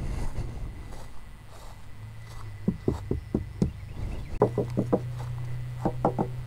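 Short runs of light knocks, about four a second, from a small aluminum boat and its trailer being handled and tapped, over a steady low hum.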